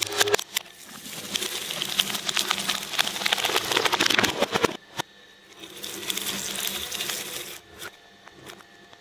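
A shredder crunching through material: a dense run of crackling that stops suddenly about five seconds in, followed by a lighter, sparser crackle.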